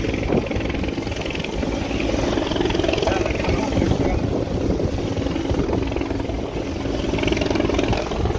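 Patrol boat's engine running steadily, with rushing wind and sea noise over it.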